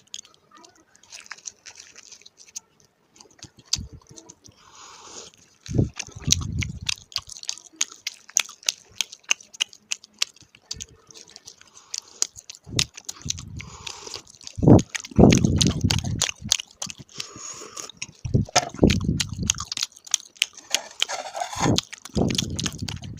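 Close-miked crunching and chewing of crispy fried paratha: many short crackly bites, with several louder, deeper muffled sounds between them.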